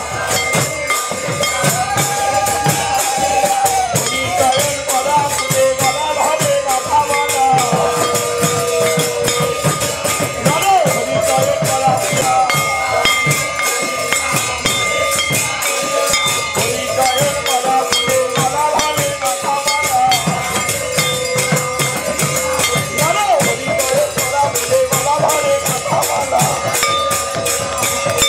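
Devotional live music: a khol barrel drum played under fast, continuous jingling of hand cymbals, with wavering sung or played melody lines above.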